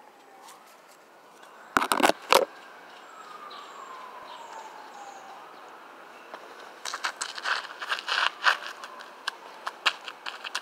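A phone knocked against the asphalt a few times as it is set down, then from about seven seconds sneakers tapping and scuffing on asphalt in quick irregular steps as a man dances. A faint tone slides slowly downward in the background.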